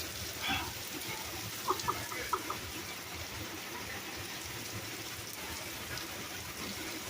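Rain falling steadily, with a few brief high-pitched blips about two seconds in.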